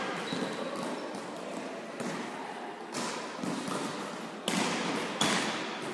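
A volleyball being served and played: several sharp smacks roughly a second apart, each echoing in a large sports hall.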